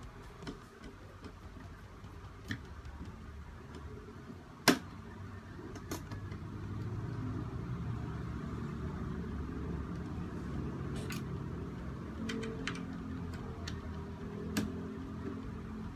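Screwdriver turning small screws in a plastic laptop-cooler fan housing: scattered clicks and knocks of the tool and the plastic, one sharp click about five seconds in the loudest. A steady low rumble joins about six seconds in.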